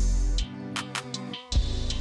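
Background music with a heavy bass and drum beat, dropping out for a moment near the end before the beat comes back in.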